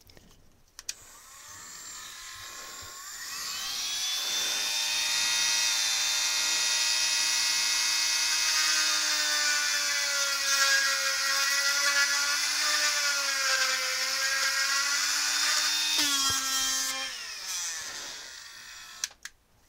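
Dremel rotary tool spinning up to a high whine, then running steadily with its pitch wavering as the bit widens screw holes in the quadcopter's camera mount. Switched off about three-quarters of the way through, it winds down with a falling whine.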